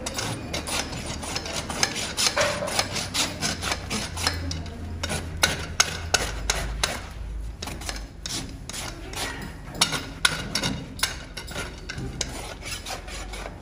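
Farrier's hoof rasp filing a horse's hoof: a run of short, scraping rasp strokes, several a second, with a brief lull in the middle.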